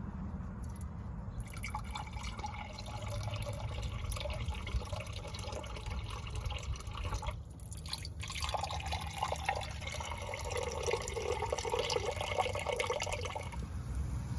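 Diluted muriatic acid being poured from a container into the cylinders of a seized Ford 289 Windsor V8, splashing and trickling in two spells with a short break about halfway, a bid to free pistons rusted in their bores.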